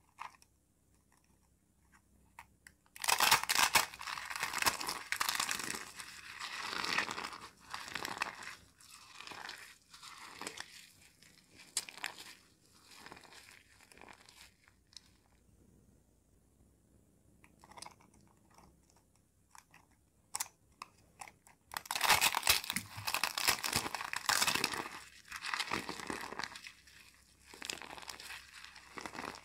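Dry soap balls crushed and squeezed in the hands, crumbling into foamy soap: two stretches of dense, crisp crunching and crackling, one starting about three seconds in and one about twenty-two seconds in, each thinning into scattered small crackles.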